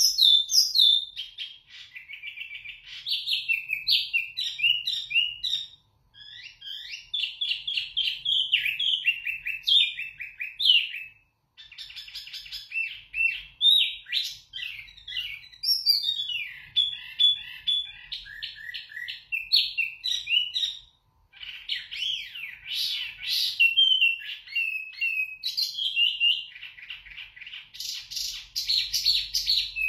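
A caged wambi mini songbird singing a loud, clear, varied song of rapid whistled notes that slide up and down. It sings in long unbroken phrases, with brief pauses about 6, 11 and 21 seconds in.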